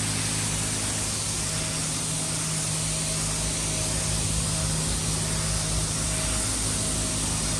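Car-wash pressure washer lance, set to minimum pressure, spraying water onto a scooter: a steady hiss of spray over an even low machine hum.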